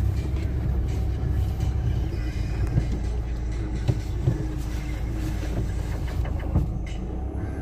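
Car driving along a rough track, heard from inside the cabin: a steady low engine and tyre rumble, with a few short knocks from bumps about three, four and six and a half seconds in.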